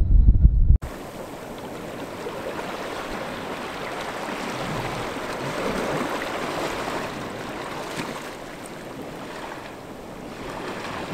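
Wind buffeting the microphone with a low rumble, cut off abruptly under a second in. Then a steady wash of small ripples lapping along the sandy edge of a river inlet, swelling slightly and easing near the end.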